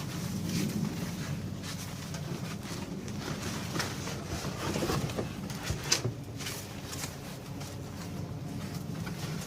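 Cardboard box and packing being handled: scattered rustles, scrapes and light knocks over a steady low hum, with a sharper knock about six seconds in.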